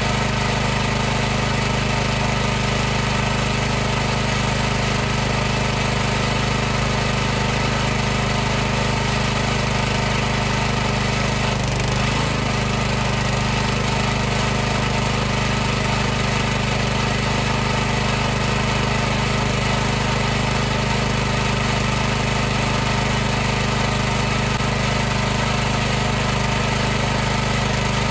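High-pressure washer running continuously, its pump and motor giving a steady, unchanging drone with a hiss over it.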